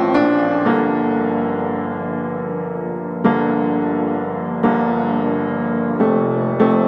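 Background piano music: slow chords struck every second or two and left to ring.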